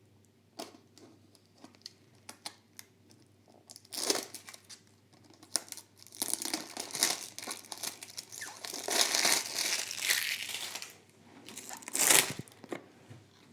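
Small model-car packaging being cut open and its wrapping pulled off. A few small clicks come first, then crinkling and tearing in bursts, with a long crinkly stretch in the middle and a loud rustle near the end.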